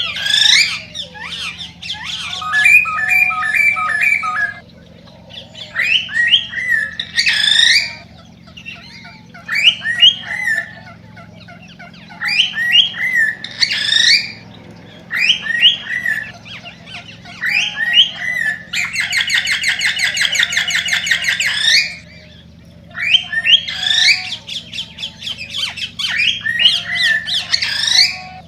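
Male cockatiel singing its excited mating song. Short phrases of chirps and whistles come every few seconds, with a rapid buzzing trill about two-thirds of the way through, over a faint low hum.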